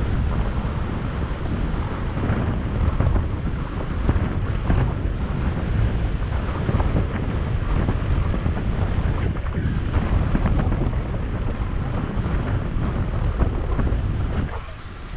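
Wind buffeting the microphone of a moving camera: a steady, rumbling low rush with no engine note heard, dropping briefly about a second before the end.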